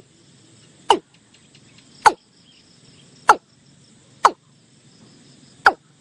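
Watercock calling: five short, sharp notes, each dropping steeply in pitch, spaced about a second apart.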